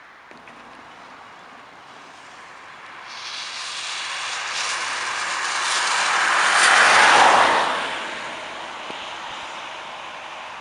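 A car passing on a wet road: the tyre hiss on the wet surface swells, is loudest about seven seconds in, and fades away again, over a quieter steady hiss of rain and traffic.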